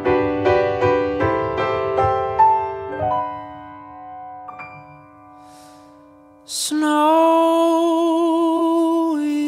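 Background music, a song intro: a run of piano notes that die away, then one long sung note with vibrato from about two-thirds in.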